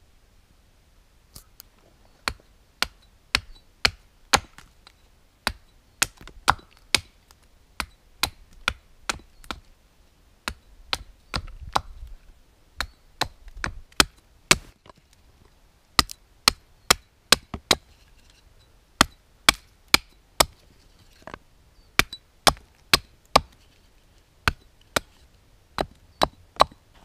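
Broad-bladed hatchet chopping into a wooden stick held upright on a stump, cutting it to a sharp point. Single sharp chops come about one to two a second, in runs broken by short pauses.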